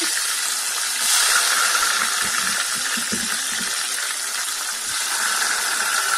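Red bell pepper pieces frying in hot oil in a small saucepan: a steady sizzle, a little louder about a second in.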